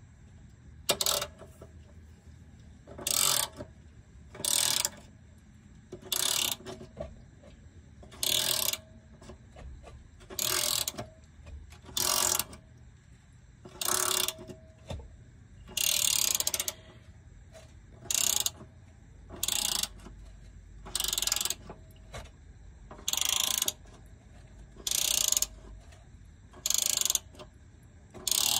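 Socket ratchet working the transmission bolts, clicking in short repeated strokes: a brief burst about every second and a half to two seconds.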